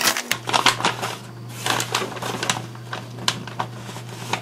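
Paper packaging of a mailed parcel crinkling and rustling as it is handled and opened by hand, in quick, irregular crackles.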